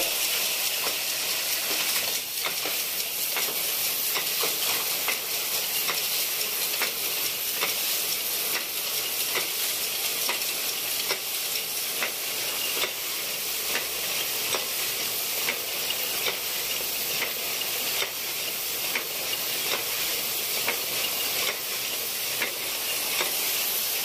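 Circular sock-knitting machines running: a steady high-pitched hiss with frequent small irregular clicks from the needles and cams.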